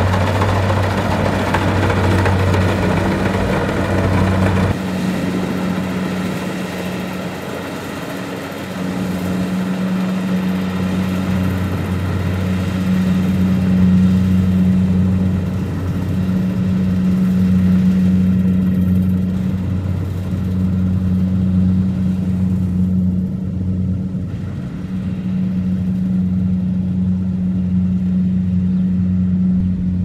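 Kubota DC-70 Plus rice combine harvesters running under load while harvesting: a steady diesel engine drone with the machinery's mechanical noise, rising and falling a little. The sound changes abruptly about five seconds in.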